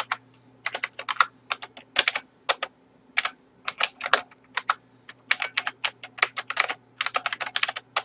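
Typing on a computer keyboard: quick keystrokes in short bursts, with brief pauses between the bursts.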